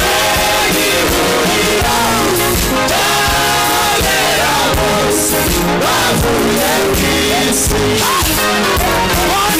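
Live worship song: several singers on microphones singing over an amplified band with a steady beat.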